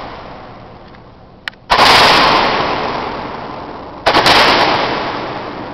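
Roman candle shots going off inside an old ammunition bunker with a hollow floor: a faint click, then a loud blast about a second and a half in and another of several quick cracks near four seconds, each trailing off in a long echo.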